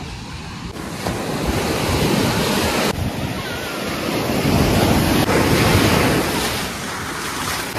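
Sea waves breaking and washing up onto a sandy beach, in swells of rushing surf that grow louder about a second in and again around four to six seconds.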